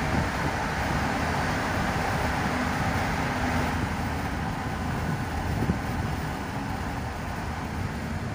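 Steady road noise of a moving car heard from inside the cabin: a low tyre-and-engine rumble under an even rushing hiss.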